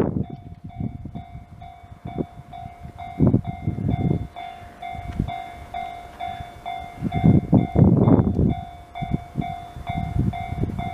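Japanese level-crossing warning bell ringing in an even repeating pattern, while a train passes over the crossing with loud low rumbling surges of wheel noise about three seconds in and again around seven to eight seconds in.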